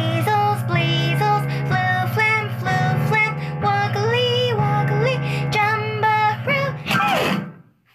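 Children's song: a voice singing over instrumental backing, with a sliding drop in pitch near the end, after which the music stops.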